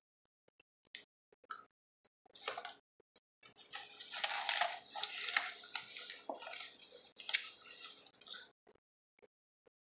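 A few short crisp crunches, then about five seconds of continuous scraping and crunching as a metal spoon digs into a cardboard box of corn starch powder.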